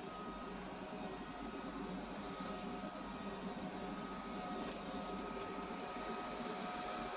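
Vorwerk VR100 (Neato XV11) robot vacuum cleaner running: a steady motor whir with hiss and several thin whining tones that come and go.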